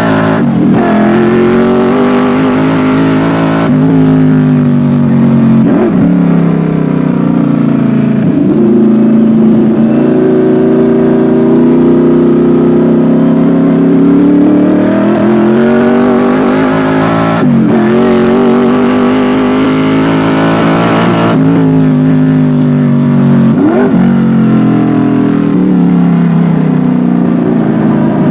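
Chevrolet V8 racing engine running hard, its pitch sinking and climbing again several times as the car slows and accelerates, with short sharp blips in between.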